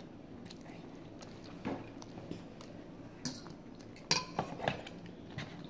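Forks clicking and scraping lightly against instant-noodle bowls during eating: a few scattered soft taps, with a small cluster about four seconds in.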